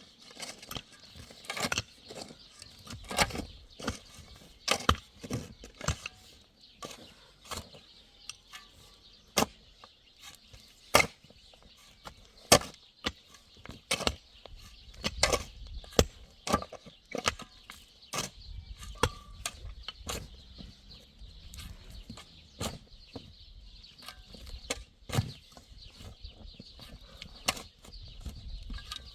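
Sharp knocks and cracks at an irregular pace, roughly one every second or two, over a faint steady high hiss.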